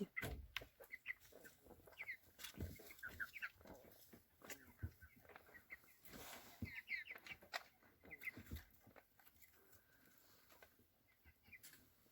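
Faint peeping of chicks, in short groups of high chirps, with short sharp clicks scattered throughout. The chicks are sick with a respiratory illness: the whole flock is sneezing and wheezing.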